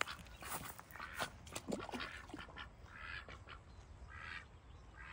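A duckling calling with a few short peeps in the second half, among scattered light taps and clicks.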